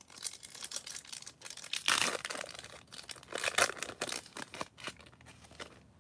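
Foil wrapper of a Topps Chrome trading card pack being torn open and crumpled by hand. The crackling rips come in a string of short bursts, loudest about two seconds and three and a half seconds in.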